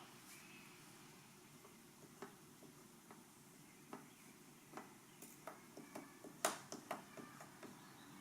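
Near silence broken by faint, scattered small clicks and taps. They come more often in the second half, with one slightly louder click about six and a half seconds in.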